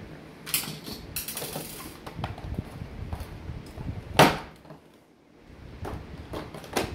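Handling noise as a graphics card is taken out of its clear plastic packaging tray: rustling plastic, scattered clicks and knocks, with one loud knock about four seconds in.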